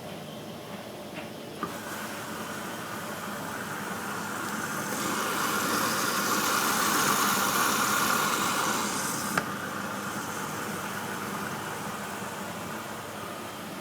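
Candy Grando washing machine drawing in water at the start of its cycle. A click, then a rushing hiss of inflowing water that swells and cuts off abruptly with a click about nine seconds in. The tumble dryer runs steadily underneath.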